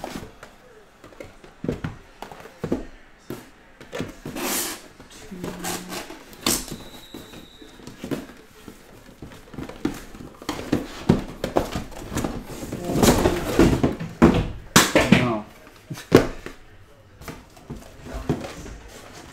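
Cardboard trading-card hobby boxes being lifted out of a shipping case and set down in stacks on a table: scraping and sliding cardboard with knocks as each box lands. There is a longer stretch of rustling and scraping about two-thirds of the way through.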